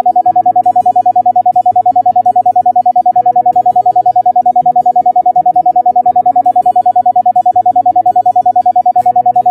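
Electronic sound-therapy tone: a loud, steady pitch pulsing rapidly and evenly on and off, over soft background music of slow, changing low notes.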